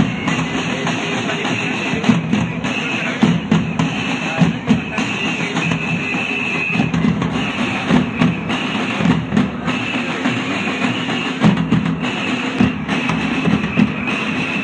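Loud music with drums beating, and a high held tone that comes and goes.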